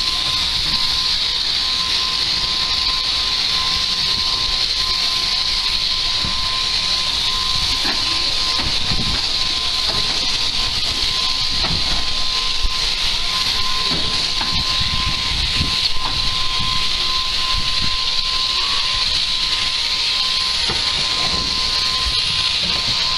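Electric sheep-shearing handpiece on an overhead drive running steadily while cutting fleece from a sheep, a continuous hissing buzz with a steady tone running through it. Occasional low knocks sound under it.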